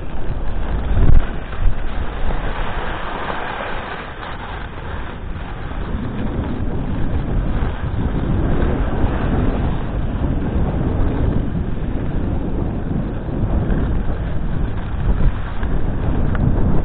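Wind buffeting a skier's camera microphone over the hiss and scrape of skis on packed snow. The sound swells and eases as the skier goes, with a couple of sharp clicks about a second in.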